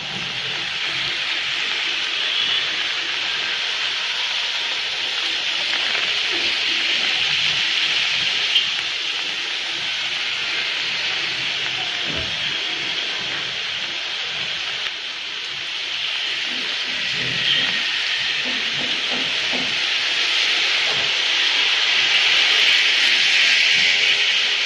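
Steady hiss of rain falling on a city street, with traffic passing on the wet road.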